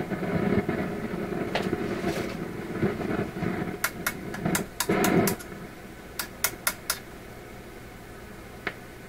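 Rough static-like noise from a PYE 39HC valve radio's speaker, which stops suddenly about five seconds in, with a series of sharp clicks around four to seven seconds in and one more near the end. The noise is the fault being traced, which the owner puts down to a dirty, noisy volume control.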